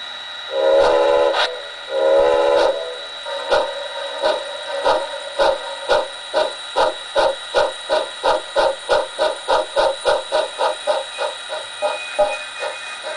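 Steam locomotive sound from a model railway sound decoder, played through a small 28 mm speaker in an enclosure. Two whistle blasts come first, then exhaust chuffs that start slowly and speed up, as the locomotive gets under way, over a steady high tone.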